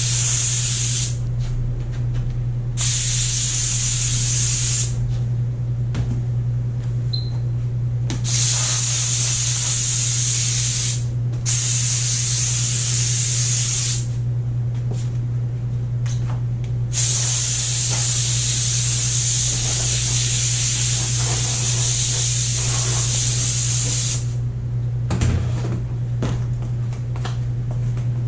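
Kärcher SC2 steam cleaner jetting steam in spurts of hissing, about five bursts of two to seven seconds each with short pauses between, the longest near the end. A steady low hum runs underneath.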